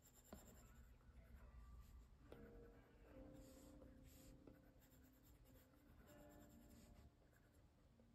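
Faint scratching and light taps of an Apple Pencil tip drawing strokes on an iPad's glass screen.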